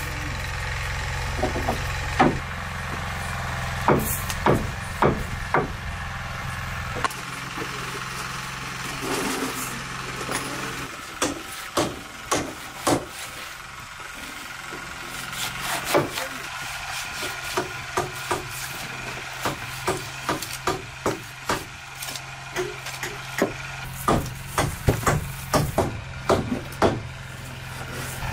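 Knife chopping on a wooden cutting board: a run of short, sharp knocks at irregular spacing, coming several a second in places, over a steady low hum.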